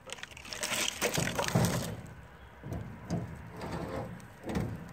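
Lump charcoal in a steel firebox drawer being stirred and prodded with a wooden stick: irregular scraping and clattering, busiest in the first two seconds, then a few separate knocks.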